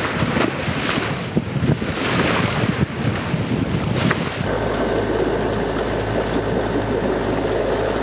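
Wind buffeting the microphone on a sailboat under way, with choppy seawater splashing. About halfway through the sound changes to a steady low drone with a faint thin high tone over it.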